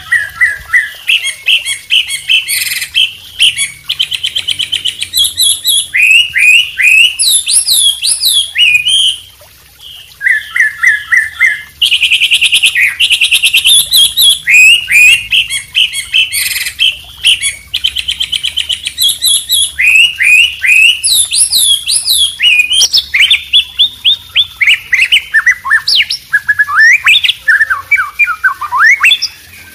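Combined song of a white-rumped shama, a wambi and a trucuk (yellow-vented bulbul) singing continuously: rapid chirps, buzzy trills and quick rising and falling whistled phrases, with a short pause about nine seconds in.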